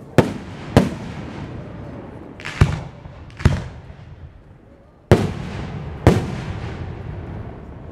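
Aerial firework shells bursting overhead: six sharp bangs at uneven intervals, each followed by a fading echo.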